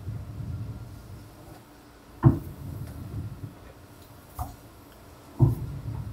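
Wooden ship's wheel being spun by hand, driving a chain-and-steel-wire steering linkage to the rudder: a low rumble that comes and goes, with two sharp knocks about two and five seconds in and a lighter one between them.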